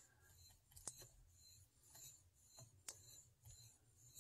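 Near silence: room tone with a faint low hum and a couple of faint, brief clicks.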